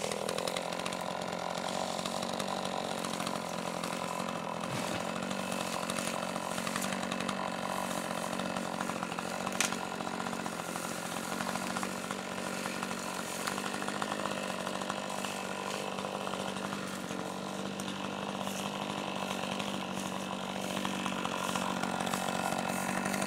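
Chainsaw running steadily at a near-constant pitch, with one sharp click about ten seconds in.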